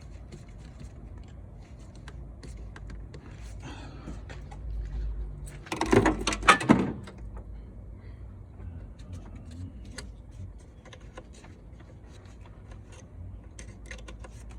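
Light clicks and taps of hands and tools working on hoses and fittings in an engine bay, with a short burst of louder clatter about six seconds in.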